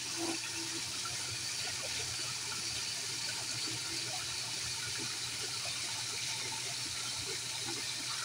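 Steady rush of water running and splashing into a small garden fish pond, an even hiss that does not change.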